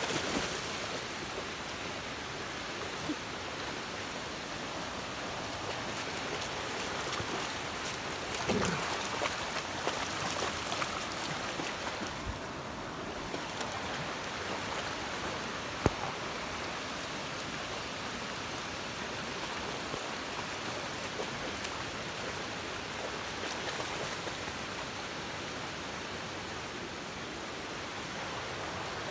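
Shallow, rocky creek rushing steadily over stones, with a few short splashes and knocks as dogs run through the water.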